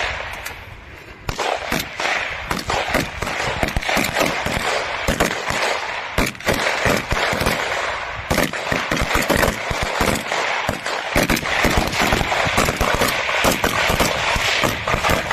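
Several assault rifles and a bipod-mounted light machine gun firing together in rapid, overlapping shots. A few single shots come first, then from about a second in the shots pile up too fast to count.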